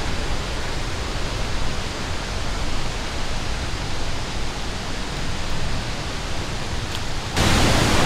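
Steady rushing roar of a waterfall (Rainbow Falls on the Wailuku River), becoming abruptly louder near the end.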